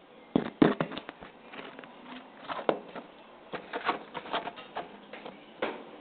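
A run of irregular knocks and clicks: a quick cluster about half a second to a second in, then scattered single knocks through the rest.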